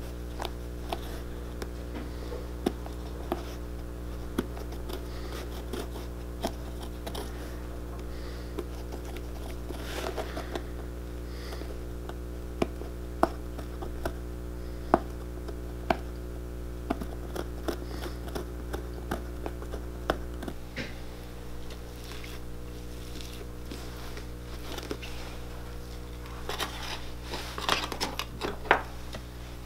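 Sparse small clicks and taps from hand tools working the welt of a boot, over a steady low hum. Near the end comes a short run of scraping as ground cork filler is spread over the insole with a spatula.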